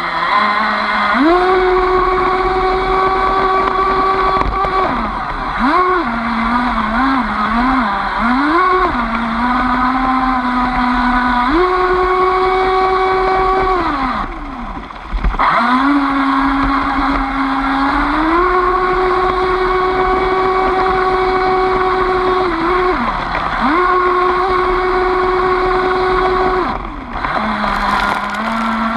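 Aquacraft 2030 brushless motor of a rebuilt Miss Gieco 29 RC boat, heard from on board: a loud electric whine over the hiss of water, its pitch stepping up and down with the throttle and wobbling quickly for a few seconds early on. It drops away briefly twice, about halfway and near the end, and a hiss of spray rises just before the end.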